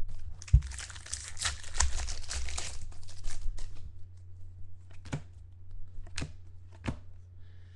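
Foil wrapper of a Topps Finest football card pack being torn open and crinkled for about three seconds, after a single thump near the start. Then a few light clicks as the cards are handled, over a steady low electrical hum.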